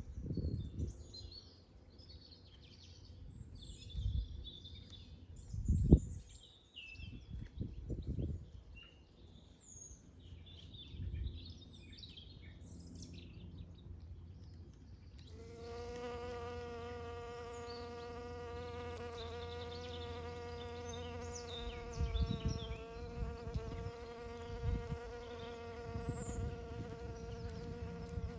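Honeybees buzzing at snowdrop flowers. About halfway through a bee's buzz comes in close and holds as a steady hum to the end. Before that there are scattered bird chirps and a few low bumps.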